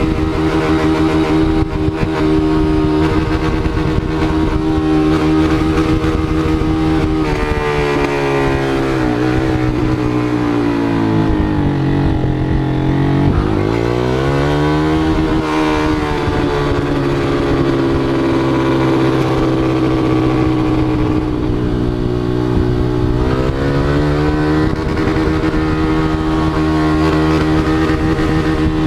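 Motorcycle engine running at a steady high speed. Its pitch falls about eight seconds in, bottoms out a few seconds later and climbs back, then dips briefly once more near the end as the revs drop and rise.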